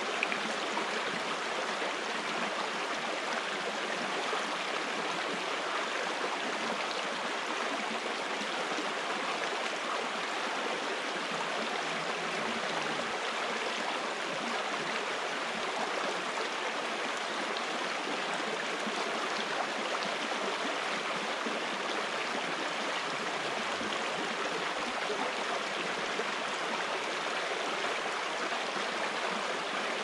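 Shallow rocky stream flowing over stones in small riffles, a steady rushing of water.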